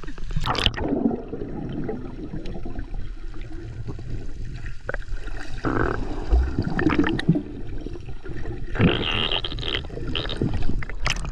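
Water sloshing and gurgling close to the microphone, swelling and easing unevenly, with a few small knocks.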